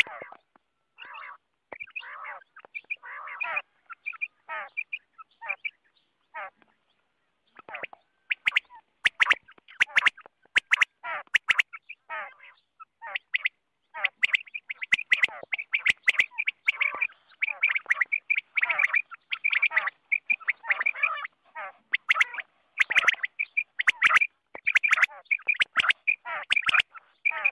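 Common quail calling: many short, sharp call notes, scattered at first, then coming thick and fast from about eight seconds in, with sharp clicks among them.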